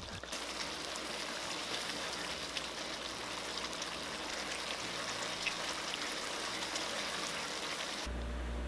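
Thickened sauce sizzling and bubbling in a wok around fried chicken pieces: a steady hiss with fine crackle. Near the end it cuts off suddenly, leaving a low room hum.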